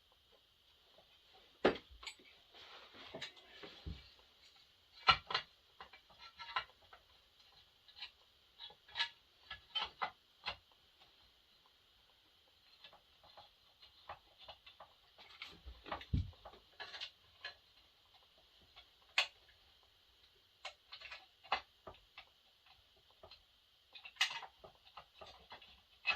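Irregular clicks, taps and knocks of hand work on chainsaw parts and tools on a workbench, a few of them sharper, over a steady faint high hiss.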